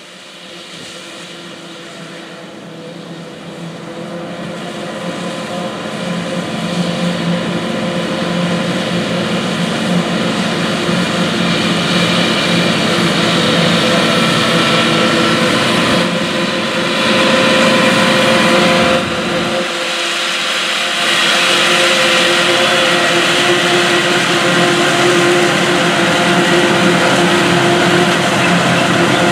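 John Deere 4455 tractor's six-cylinder diesel working under load, driving a John Deere 3975 pull-type forage harvester through the PTO as it chops two rows of corn, with the harvester's steady machine whine mixed in. The sound grows louder over the first dozen seconds and changes abruptly about 20 seconds in.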